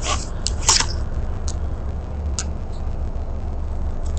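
Low steady rumble of a subway train's running gear heard inside the car as it pulls into a station, with a few short sharp high clicks and squeaks in the first second and a couple more around the middle.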